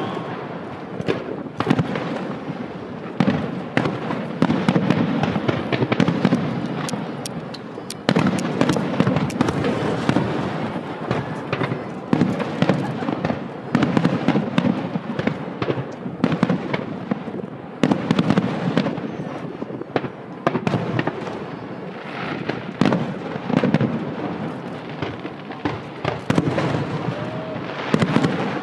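Aerial fireworks display: shells bursting one after another in repeated sharp bangs, with dense crackling and popping in between.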